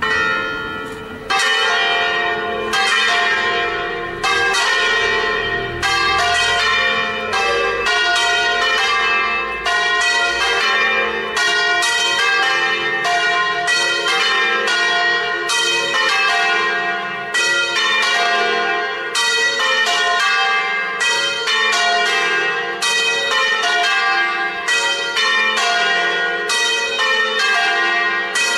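Several swinging church bells ringing a full festive peal to call people to mass. After a first stroke, from about a second in the bells strike rapidly one after another at different pitches, each stroke ringing on under the next.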